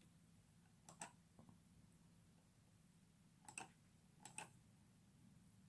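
Near silence: quiet room tone with three faint double clicks, about one second in, about three and a half seconds in, and just past four seconds.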